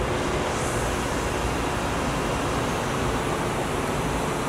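Steady machine-shop background noise: an even hiss and low rumble with no distinct machine tones or knocks.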